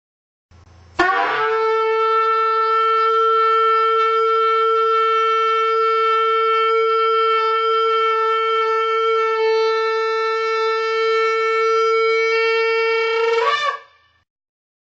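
A shofar blown as one long, steady note of about twelve seconds. It has a brief wobble in pitch as it starts and again just before it breaks off.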